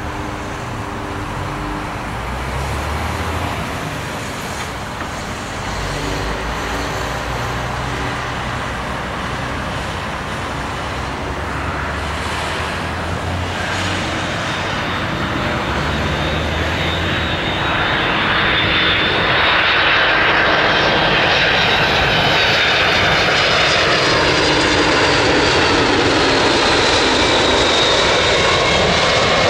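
Airbus A300-600F freighter's two General Electric CF6-80C2 turbofan engines on landing approach: a steady jet rumble that builds as the aircraft closes in. A high fan whine grows louder and bends in pitch over the second half.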